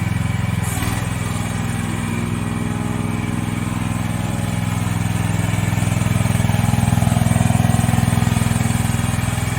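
Engine of a CFG MX15RX mini excavator running steadily, growing a little louder for a few seconds past the middle.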